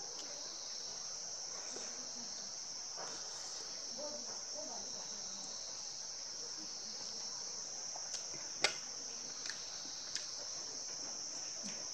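Quiet eating sounds: a metal fork and spoon clicking against a plate a few times, the sharpest click about nine seconds in, over a steady high-pitched insect trill like crickets.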